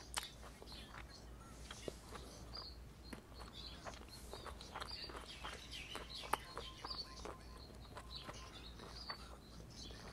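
A thin plastic bag around a summer roll being handled, giving soft crinkles and many short clicks, with faint high chirps now and then.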